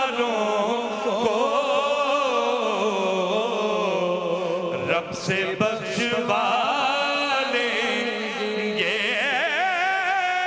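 A voice singing an Urdu naat, a devotional hymn in praise of the Prophet, in long, wavering melismatic phrases.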